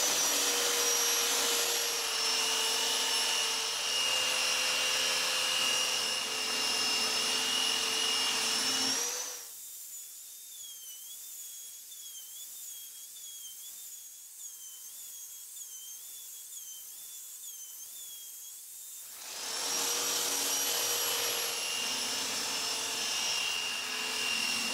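Handheld electric belt sander running on wooden boards with a steady high whine. It goes quiet for about ten seconds in the middle, then starts up and runs again.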